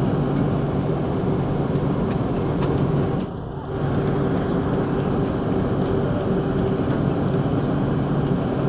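Steady cabin noise of an Airbus A330-300 taxiing: the Rolls-Royce Trent 700 engines humming at low thrust over a deep rumble from the airframe and wheels. The sound dips briefly about three seconds in.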